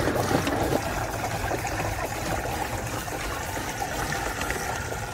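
Fertilizer solution poured from a plastic bucket into a knapsack sprayer's tank: a steady stream of water splashing into the tank.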